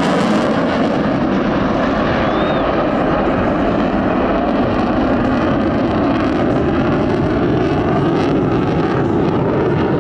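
Loud, steady jet noise from an F-15C Eagle's twin turbofan engines as the fighter flies past.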